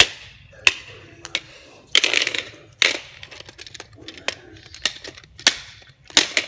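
Hard plastic knocks: a yellow plastic toy banging on a green plastic toy camera, about nine sharp, irregular hits with a short rattling clatter about two seconds in.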